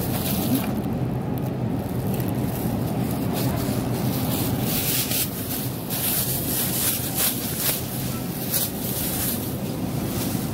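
Steady background rumble of a supermarket aisle, picked up through a phone's microphone, with short rustling scuffs from handling the phone.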